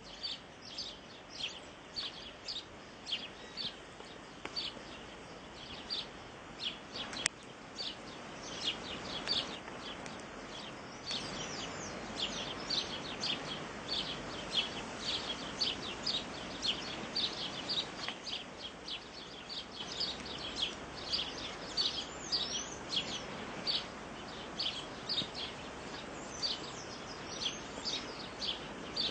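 A bird chirping over and over: short, high, downward-sliding chirps about two a second, over a steady background hiss.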